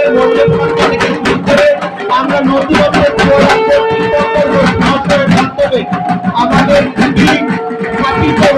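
Music with a fast steady beat and a held melody line.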